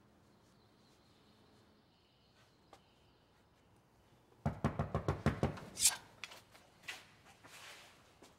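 Rapid knocking on a door: a quick run of about eight knocks in just over a second, starting about four and a half seconds in, followed by a few scattered lighter knocks and taps.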